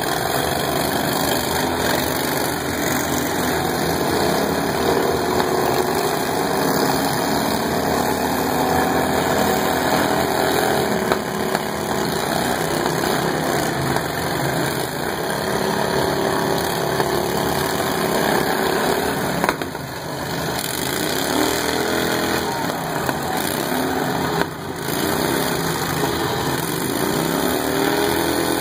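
Several riding lawn mower engines running at once. Their pitch rises and falls as they are revved, most clearly in the last several seconds.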